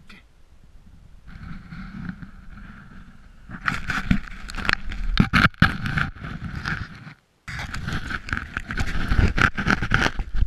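Snow scraping and crunching right against the camera as it is handled at ground level, turning loud and rough with irregular rubbing strokes from about three and a half seconds in, with a short break near the middle.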